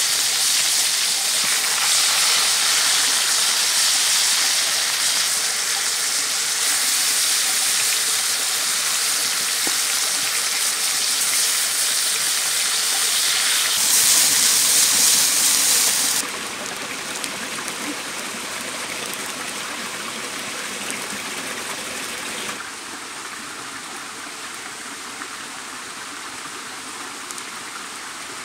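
Pieces of rooster sizzling in oil in a wide pan over a wood fire. About 14 seconds in, liquid poured into the hot pan makes a louder hiss, which cuts off suddenly about two seconds later. What follows is the steady rush of a stream and small waterfall.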